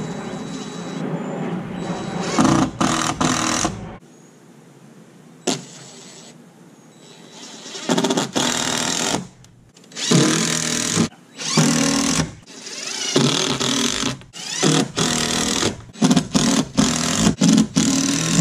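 Cordless drill running against a plywood boat transom in repeated start-stop bursts: several runs of about a second, then a quick string of short trigger pulls near the end.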